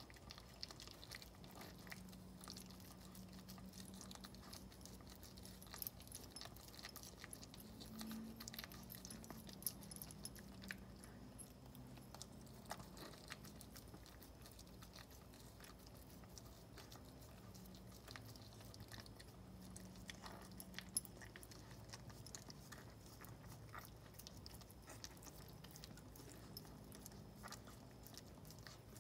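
Maltese mother dog licking and cleaning her newborn puppies: faint, irregular wet licking and smacking with many small clicks.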